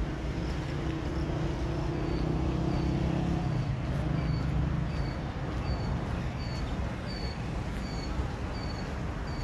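Steady outdoor traffic rumble, with a vehicle engine hum that fades after the first few seconds. From about two seconds in, a small bird repeats a short, high, slightly falling chirp about twice a second.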